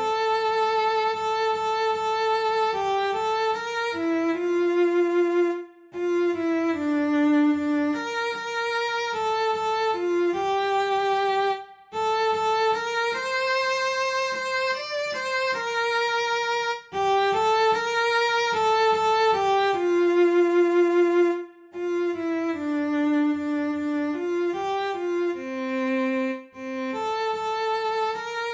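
Cello playing a slow single-line melody of a Korean art song in the instrument's upper register. The bowed notes come in phrases of about five seconds, each followed by a brief break.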